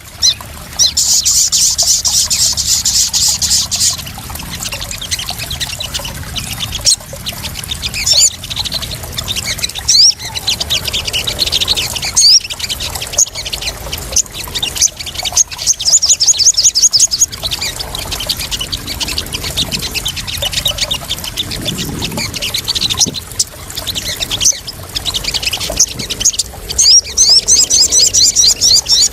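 Crimson sunbirds (sogon) calling in rapid, high-pitched trills and chirps that come in bursts of a few seconds each, over water splashing and trickling.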